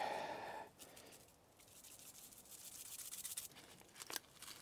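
Faint, dry rasping of a spice grinder being twisted to grind Montreal steak seasoning onto a raw steak, strongest in the first second, then a softer fine scraping and a light tap near the end.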